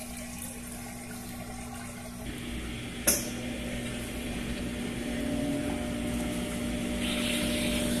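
Top-loading washing machine running at the end of its cycle: a steady motor hum with water noise, which grows louder about two seconds in. There is a single click about three seconds in.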